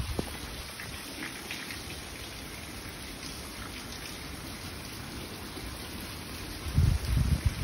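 Thick fruit chutney bubbling and sizzling in a pan, a steady crackling patter. A few loud low rumbling bumps come near the end.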